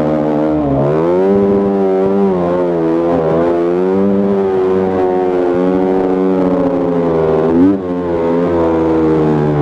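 Enduro dirt bike engine running while riding, its pitch rising and falling with the throttle, with a quick rev and drop about three quarters of the way through.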